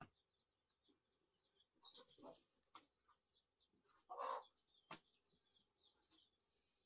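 Faint high chirping of a small bird, short chirps repeating about three or four times a second, with a few soft clicks and one short louder sound about four seconds in.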